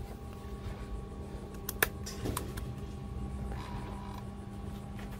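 Steady low electrical hum with a few fainter steady tones above it, broken by a few short, sharp clicks about two seconds in.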